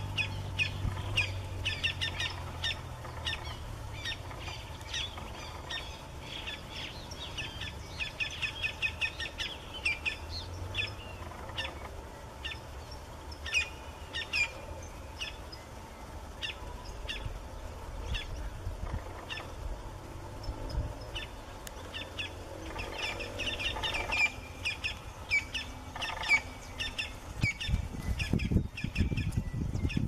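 Campo flicker calling: several quick runs of sharp, high notes, with pauses between the runs. A low rumble near the end.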